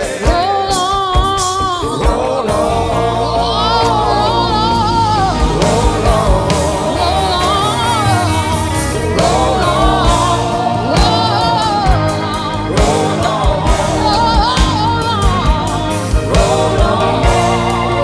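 Live worship music: singers holding long, wavering notes over a band with a steady bass and regular drum hits.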